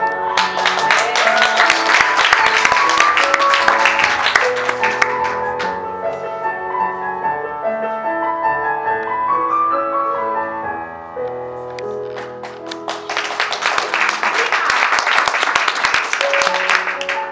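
Piano music playing for a pole dance routine, with the audience breaking into applause twice: almost at once for about five seconds, then again from about thirteen seconds in until near the end.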